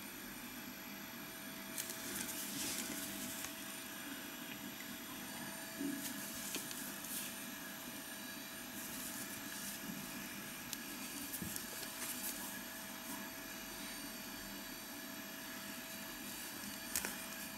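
Soft rustling and a few light clicks of cotton-gloved hands handling a wristwatch on a rubber strap, over a steady faint hiss with a constant thin tone.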